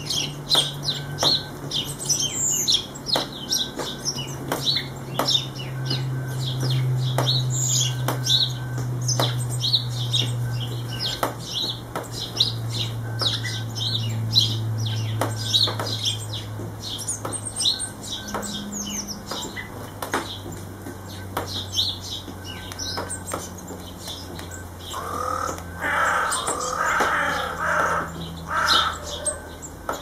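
House sparrows chirping, a constant stream of short rapid chirps that is busiest in the first two-thirds, over a low steady hum. A louder rustling flurry comes a few seconds before the end.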